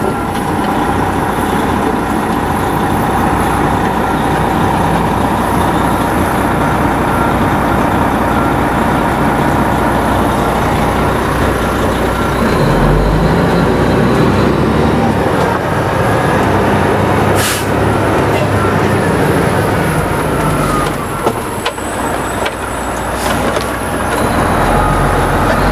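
Fire truck's diesel engine running as the truck moves off, heard loud and steady from inside the cab. A short air-brake hiss comes about two-thirds of the way through.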